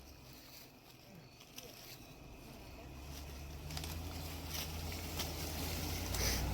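A vehicle's engine runs low and steady. It starts faint and grows steadily louder from about three seconds in as the truck moves at low speed on a rutted off-road hill.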